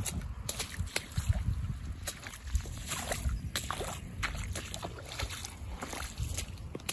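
Boots squelching and splashing through shallow water and mud on a waterlogged lawn, in irregular steps.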